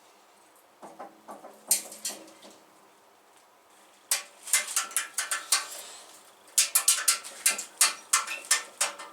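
Bursts of quick clicks and clattering from hard objects being handled, some with a short metallic ring. The clicks come in three clusters, starting about a second in, again around four seconds, and a denser run in the last few seconds.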